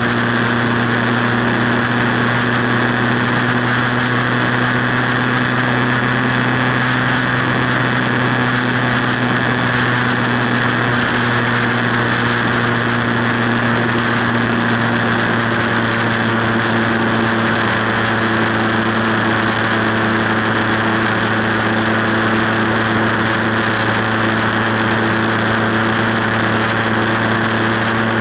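Motorcycle engine running at a steady highway cruise, a constant engine hum mixed with wind and road noise.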